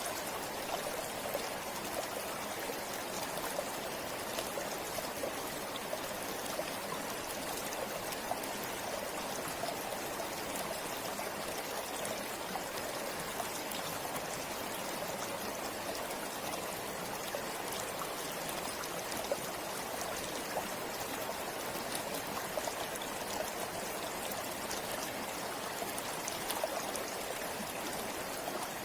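River water flowing over rocks: a steady rushing and babbling, with small splashes and ticks scattered through it.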